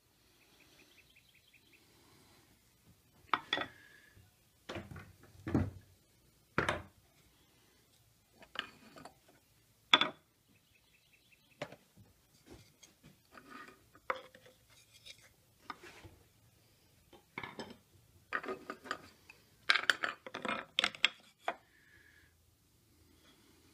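Carving tools and a square being handled on a wooden workbench: scattered knocks and clinks of steel tools against wood, with a busier cluster of them near the end.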